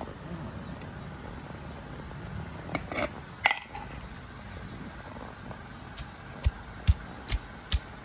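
Neem-wood pestle pounding chibbar (wild melon) pieces in a clay mortar: even knocks about every half second from about six seconds in. Around three seconds in come a few sharp clinks as the pieces are tipped in from a steel plate.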